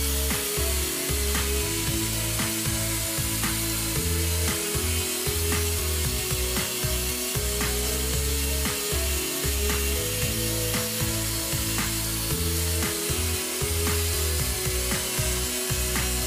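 Background music with a regular beat, over the steady hiss of an angle grinder's flap disc grinding rust off a steel hatchet head.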